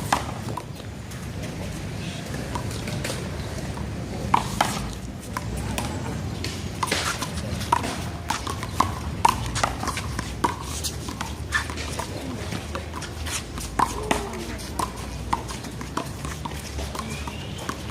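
A small rubber handball being slapped by hand, hitting the wall and bouncing on the concrete court in an irregular run of sharp smacks during a one-wall handball rally, over a steady low background rumble.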